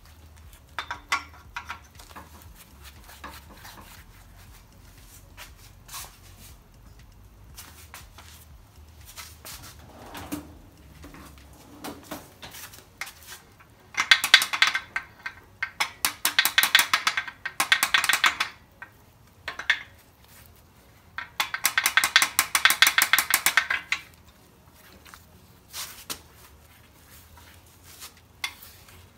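Hand tools working on an engine block during camshaft removal. Scattered metal clinks, then three bursts of rapid ratcheting clicks about halfway through, each lasting one to two and a half seconds, as fasteners are turned.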